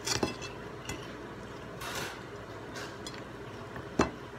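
Spoon and fork clinking and scraping against a plate while eating, a few scattered clinks with a brief scrape about halfway through and the sharpest clink near the end.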